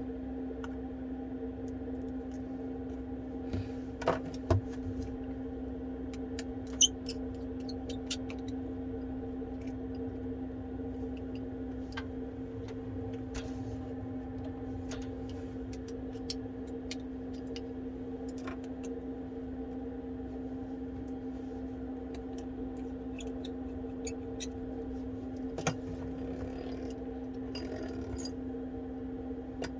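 Scattered small clicks and taps of repair tools against the inside of an iPhone 12 as its flex cables are unclipped, a few sharper ones about four and seven seconds in, over a steady low hum.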